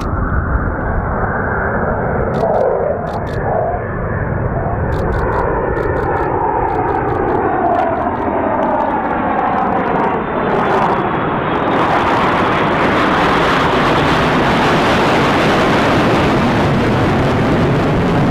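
Fighter jet engine noise, loud and continuous. A shifting tone slides downward through the first half as the aircraft passes, then the sound turns brighter and fuller from about twelve seconds in.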